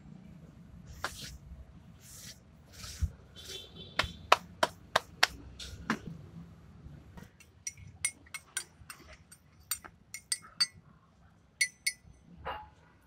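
A metal spoon stirring coffee in a ceramic mug, clinking against the inside in quick, irregular taps. It is preceded by a handful of sharper single knocks and rustles.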